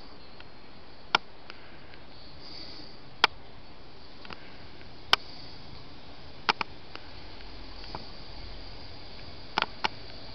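Steady hiss broken by about seven short, sharp clicks scattered through it, the last four coming in two close pairs.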